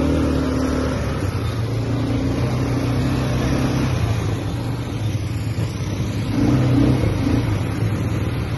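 ATV engine running while being ridden, its note rising and falling with the throttle and loudest a little past the middle.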